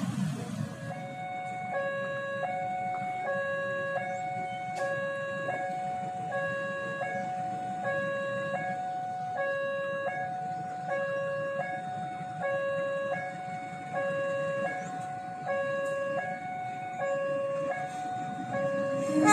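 Railway level-crossing warning alarm sounding steadily, an electronic two-tone signal that switches back and forth between a lower and a higher note, each held for well over half a second, warning that a train is approaching. Motorbike engines fade out in the first second, and a sudden loud burst comes right at the end.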